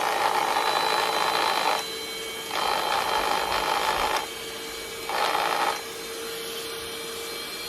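LWP1007 cordless mattress vacuum (dust mite controller) running, its motor giving a steady whine. A louder rushing of air swells and drops back three times.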